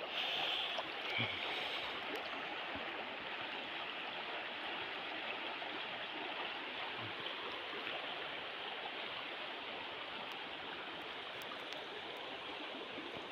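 River water running in a steady, even rush.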